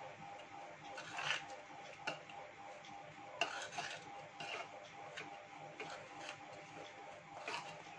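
Steel spoon stirring a dry, coarse ground masala in a bowl, with irregular scrapes and light clinks of the spoon against the bowl.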